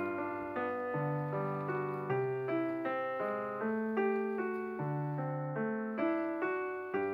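Background piano music: a slow, gentle run of single notes over longer held bass notes.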